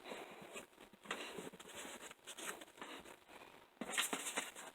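Faint, irregular rustling with a few light knocks: toys and a doll being handled and fitted into a gift shoebox, with a louder rustle near the end.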